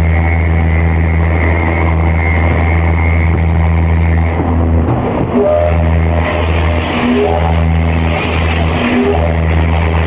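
Deep ship's horn of the battleship USS Texas sounding a long, steady blast, broken briefly about halfway and then running on with a few short breaks.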